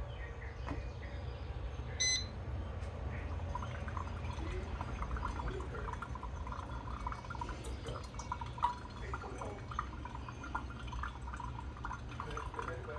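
Braun MultiServe drip coffee maker gives one short beep, then gurgles and drips as it brews, over a low steady hum.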